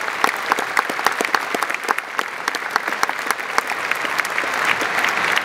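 Large audience applauding, a dense patter of many hands clapping that grows a little louder near the end.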